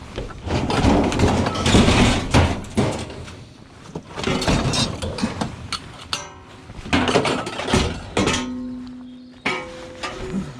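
Repeated metal clanks and thunks, scrap being handled or knocked about, through the first half or so. From about eight seconds in, background music with held notes takes over.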